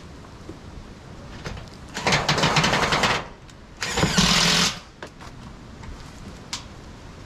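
A small power tool running in two short bursts of about a second each, the first just after two seconds in and the second about four seconds in.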